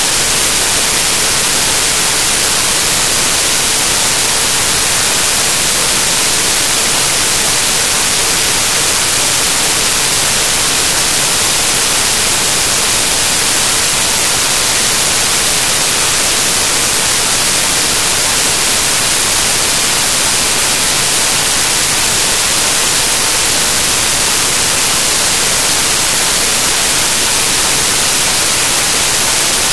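Loud, steady static hiss, strongest in the treble and without any speech: the noise of corrupted audio data in the file.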